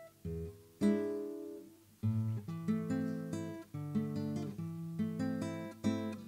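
Solo acoustic guitar playing, plucked and strummed chords that each ring out and decay, with a short break just before two seconds in.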